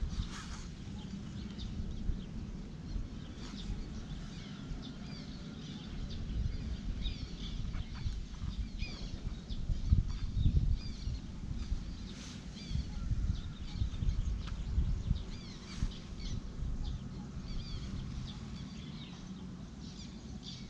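Small birds chirping and singing over and over, over a steady low noise, with a few short knocks and scrapes as a knife cuts sulphur shelf fungus from willow bark.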